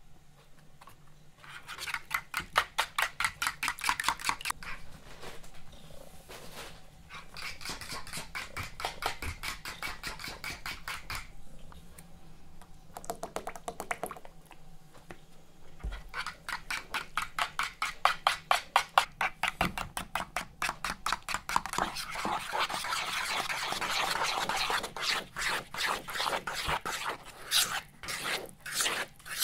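A metal spoon beating runny pancake batter in a plastic bowl, tapping and scraping the bowl about five or six times a second in spells separated by short pauses.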